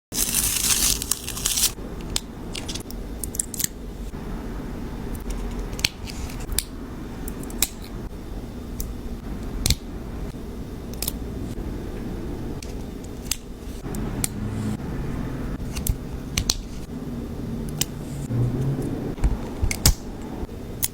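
Hands working craft materials for DIY toys: a loud rustle to start, then scattered sharp clicks and snips over a steady low hum.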